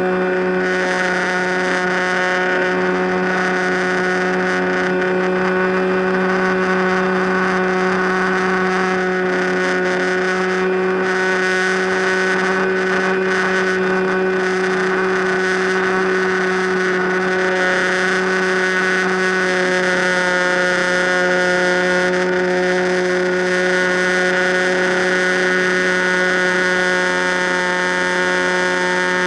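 FPV Raptor model plane's electric motor and propeller running at steady throttle: a constant, even hum.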